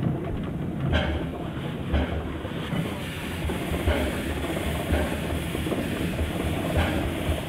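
Narrow-gauge steam train running, a steady rumble with a regular knock about once a second, like wheels over rail joints.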